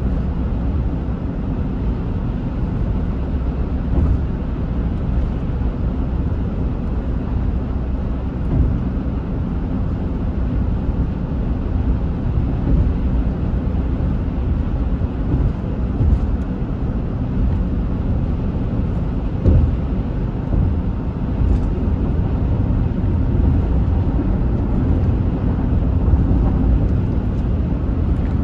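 Steady low rumble of tyre, road and engine noise heard inside a car moving at highway speed, with a few brief thumps along the way.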